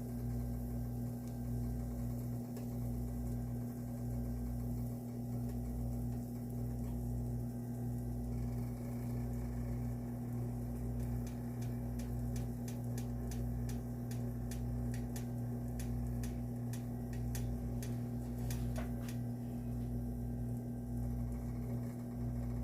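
Steady low hum in a kitchen while a pancake cooks in an oiled pan. Around the middle comes a run of quick, light ticks, about three a second, lasting several seconds.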